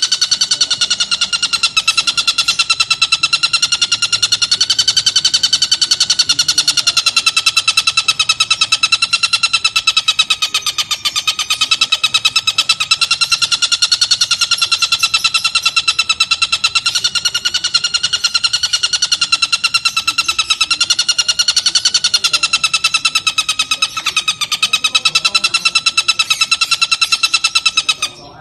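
Oriental dollarbird (tengkek buto) calling in a continuous rapid chatter of fast-repeated harsh notes at a steady, slightly wavering pitch. The chatter breaks off briefly near the end.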